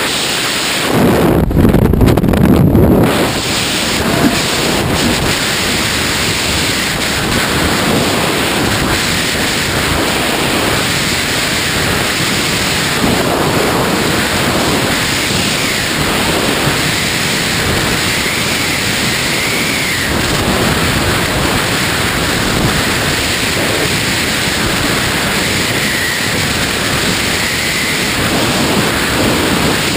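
Freefall wind rushing over the camera microphone during a tandem skydive: a loud, steady rush of noise, louder and deeper for the first three seconds or so after leaving the aircraft.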